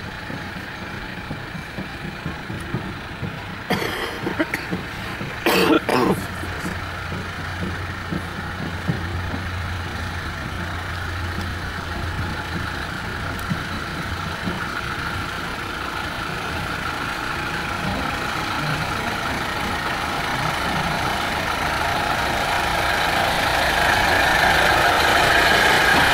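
Small narrow-gauge diesel locomotive running as it approaches, its engine growing steadily louder over the last several seconds as it draws close. A few sharp knocks come about four to six seconds in.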